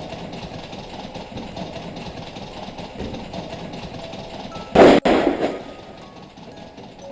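A single loud crash about five seconds in, dying away within a second, over a steady background noise.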